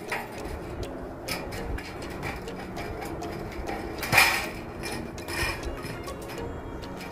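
Sheet-metal flashing strip being handled and laid on an asphalt-shingled roof: light clicks and knocks, with one loud clank just after four seconds in and a smaller one about a second later.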